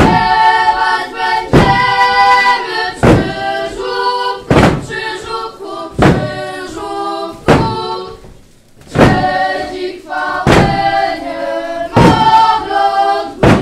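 Children's group singing a Polish folk carol together, with a heavy thump on the floor about every second and a half keeping time to the song.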